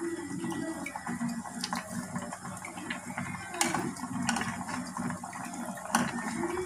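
Metal spoon stirring a liquid fish stew in a metal pot, the liquid sloshing, with a few sharp clinks of the spoon against the pot.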